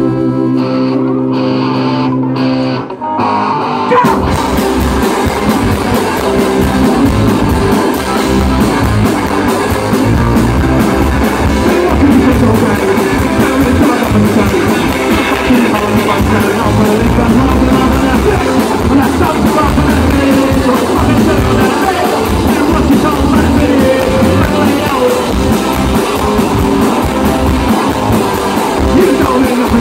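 Live rock band on stage: a held electric guitar chord rings for the first few seconds, then the drums, electric guitars, bass and lead vocal come in together at about four seconds and play on loudly.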